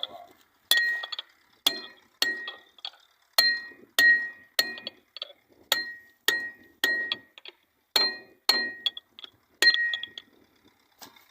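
Steel being struck again and again with a hammer during a loader wheel-hub repair, about a dozen blows in uneven groups of two or three. Each blow leaves a short ringing at the same high pitches.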